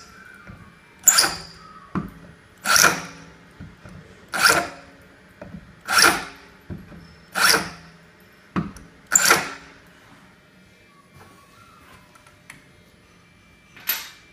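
Roscamat Tiger electric tapping arm driving a countersink bit into pre-drilled holes in an aluminium block: six short bursts of cutting, one about every second and a half. It then goes quieter, with one more short burst near the end.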